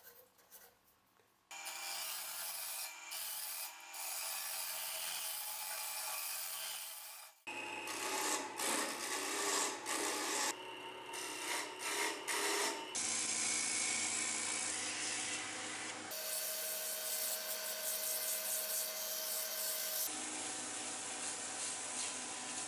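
A hand turning chisel cutting a spinning oak handle on a small wood lathe: a steady scraping hiss over the lathe motor's low hum. It starts after a quiet second and a half of light ticks, and its tone changes abruptly several times.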